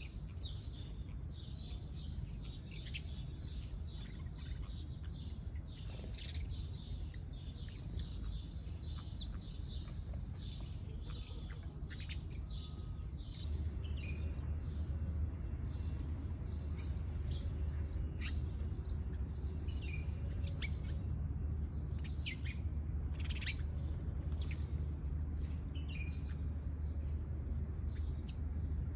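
Many small birds chirping in quick, overlapping short calls. Under them runs a steady low rumble that gets louder about halfway through.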